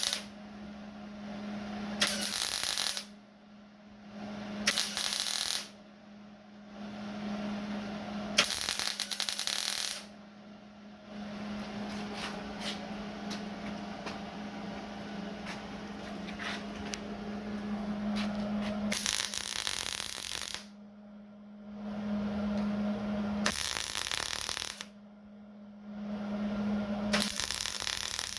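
MIG welder arc crackling in a series of short bursts of one to two seconds, with a longer, quieter run in the middle, over a steady hum. The welds are building up metal to fill a worn, out-of-round pivot hole in a skid steer's control lever.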